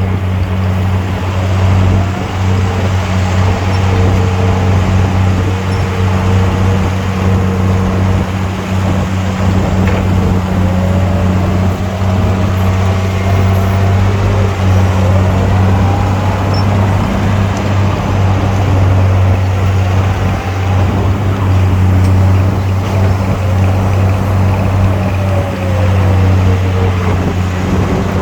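Heavy diesel engine of earth-moving equipment running steadily with a deep constant hum, faint wavering whines drifting above it.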